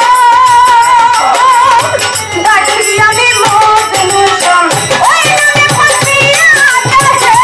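Live Bengali baul folk music: a woman singing a devotional song with held, wavering notes over fast hand percussion and rattling cymbals.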